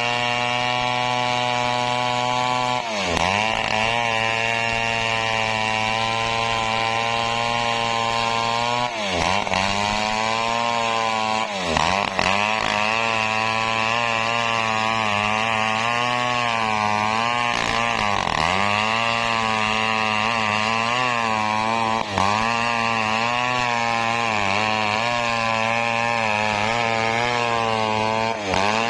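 Stihl 070 two-stroke chainsaw running at high revs while ripping teak lengthwise. The engine pitch dips sharply about six times as it bogs in the cut and then recovers, and it wavers more in the second half.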